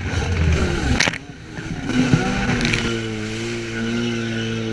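Personal watercraft engines running hard, their pitch rising and falling as the craft jump waves, with a sharp burst of noise about a second in. From about three seconds in, one engine holds a steady pitch.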